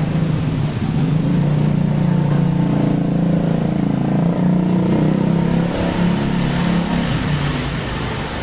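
Fuel-injected engine running during a tune-up, its pitch wavering a little. It eases down slightly near the end.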